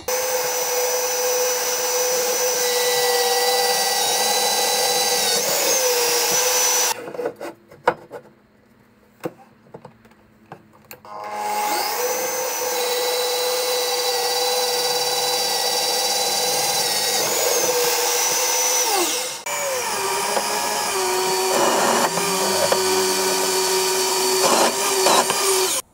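Bosch bench drill press running with a steady whine as it drills holes through a steel bar. It runs for about seven seconds, stops for a few seconds of clicks and handling, then runs again to the end, dropping out briefly about two-thirds of the way in.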